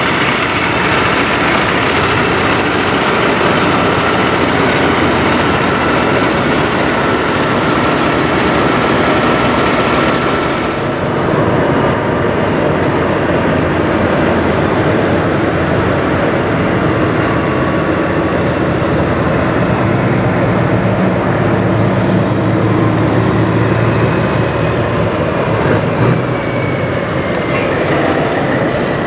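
Parked diesel semi trucks idling, a steady loud rumble with a faint steady hum on top. The sound changes abruptly about eleven seconds in, where the shot changes.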